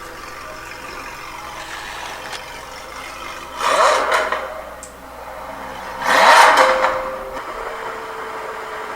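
Engine sound of a LaFerrari RC toy car, with two loud revving surges about three and a half and six seconds in and a steadier engine tone between and after them.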